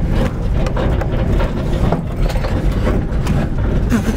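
Renault 4L driving over a rough dirt track, heard from inside the cabin: a steady low rumble of engine and tyres with frequent knocks and rattles from the body.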